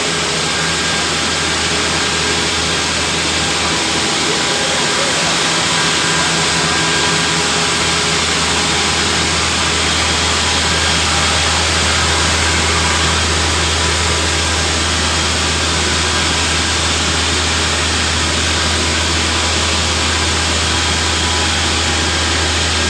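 Engine running steadily: a constant loud drone with a low hum that holds at one level.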